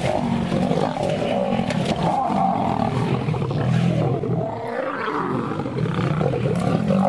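Lions fighting: a male and lionesses growling and roaring without a break, a harsh, rough sound.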